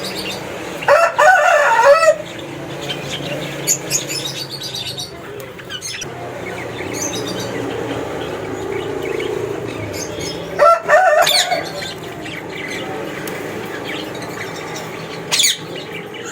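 A colony of cockatiels calling and chirping: loud harsh calls about a second in and again about ten seconds in, with scattered high chirps in between.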